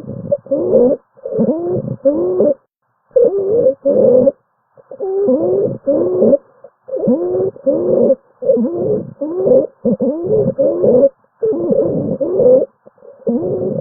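Stridor in a lung-sound recording: pitched, cooing breath sounds whose tones glide up and down, coming in short pairs about every one and a half to two seconds with brief silences between. Stridor is the sign of a narrowed upper airway.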